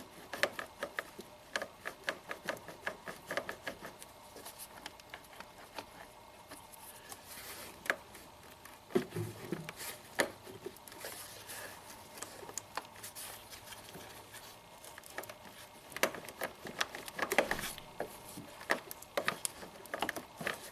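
Irregular light clicks and rustling of an engine wiring harness being wiggled by hand, a wiggle check for an intermittent break in the knock sensor wire. The clicks come in clusters, thickest at the start and again near the end.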